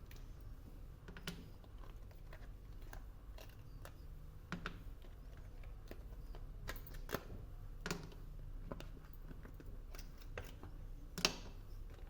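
Irregular light clicks and taps of small hard objects, about a dozen, the sharpest about eleven seconds in, over a low steady hum.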